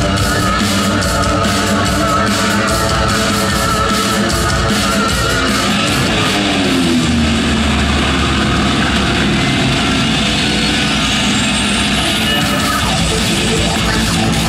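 Loud rock music with guitar, playing steadily, with a descending slide in pitch about six seconds in.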